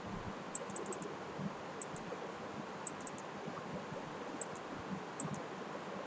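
Faint sharp clicks in small groups, every second or so, over a steady background hiss.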